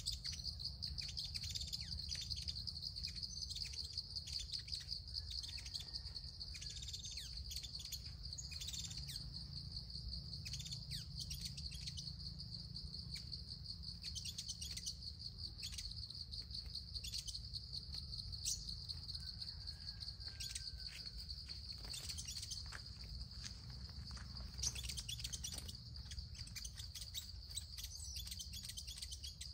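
A cricket's steady, high, pulsing trill, with small birds giving short, high chirps over it again and again.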